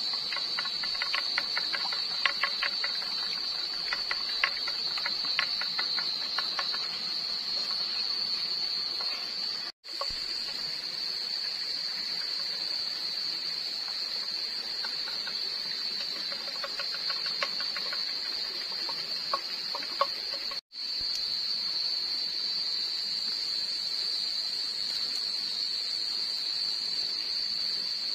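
A steady, high-pitched chorus of night insects, with light clicking and scraping of a bamboo stick stirring beaten egg in a split bamboo tube, in two spells: in the first few seconds and again about halfway through.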